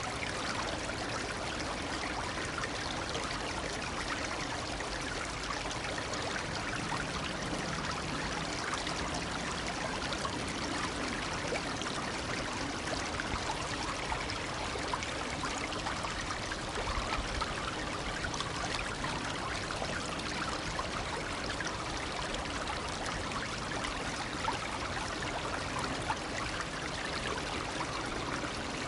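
A shallow brook babbling steadily.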